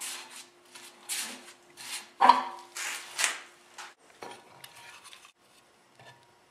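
Hands handling a segmented wooden bowl on a lathe's aluminium jumbo-jaws plate with red rubber bumpers: a run of short rubbing and scraping strokes, with one sharp clack a little over two seconds in, dying away to a few faint taps.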